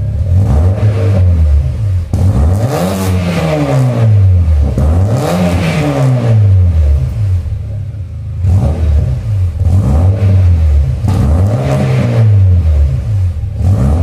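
Volkswagen Golf Mk3 engine revved repeatedly while parked: a string of about seven or eight revs, the pitch climbing and dropping back toward idle each time, the two highest about three and five seconds in.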